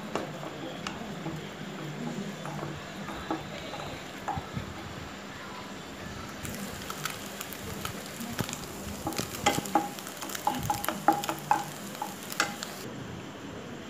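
Eggs frying in oil in a nonstick kadai, sizzling steadily while a wooden spatula stirs and chops them, its taps and scrapes on the pan coming thicker and louder from about halfway.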